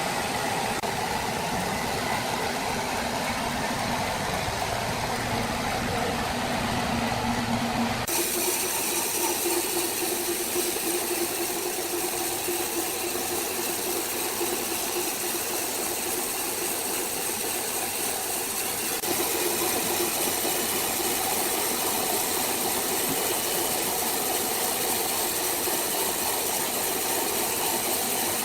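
Saw machinery running steadily, a continuous mechanical drone with hiss. About eight seconds in the sound changes abruptly to a higher, thinner hum.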